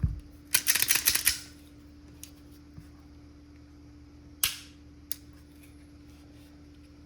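Metallic clicks and clacks of a Smith & Wesson Bodyguard 2.0 pistol being handled: a quick run of sharp clicks about a second in, then one loud clack around four and a half seconds in and a lighter click just after.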